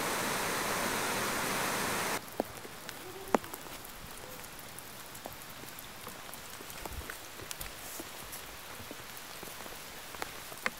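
Whitewater river rapids rushing in a steady loud hiss that cuts off abruptly about two seconds in, leaving a quieter background with scattered light ticks and patters.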